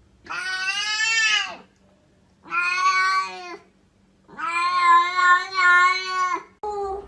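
A cat meowing three times in long, drawn-out calls, the third the longest.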